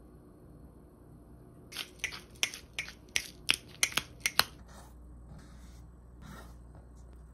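Hand pepper grinder cracking peppercorns over raw pork belly: about ten sharp, irregular clicks over some three seconds, then a few fainter brushing sounds.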